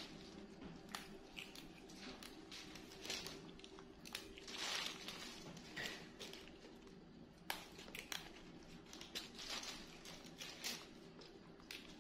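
Leafy greens being picked over by hand: irregular small snaps and crackles of stems breaking and leaves rustling, with a faint steady hum beneath.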